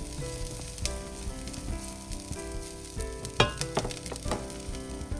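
Minced garlic sizzling in hot olive oil in a stainless steel pan while a spatula stirs it, with a few sharp clicks of the spatula against the pan a little past the middle. Soft background music with held notes plays underneath.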